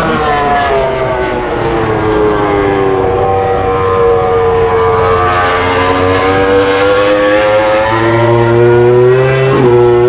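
MotoGP racing motorcycle engines at high revs, several heard at once as bikes pass on the circuit, their pitch sagging through the middle and climbing again, with a quick drop near the end as one shifts or rolls off.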